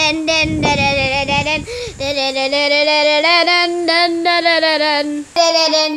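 A child singing a wordless tune at a high, fairly steady pitch, broken into short notes. A low rumble runs under it for the first two seconds.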